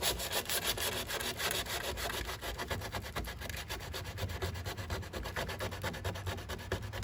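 Body filler on a car panel being sanded down, a rapid, rhythmic scratching and rasping.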